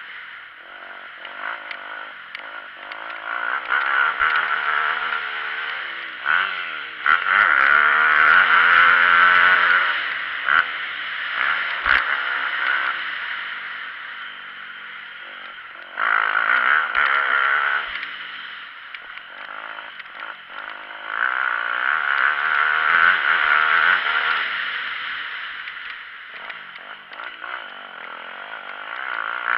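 Dirt bike engine heard from on the bike, revving up and falling off again and again as the rider accelerates and shuts off around the motocross track. The strongest pulls come about seven to ten seconds in, and again around seventeen and twenty-two to twenty-four seconds in.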